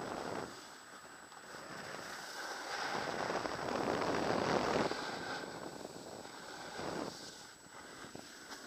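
Skis sliding and scraping through turns on groomed snow, mixed with wind rushing over the microphone. The hiss swells and fades with the turns, loudest about halfway through.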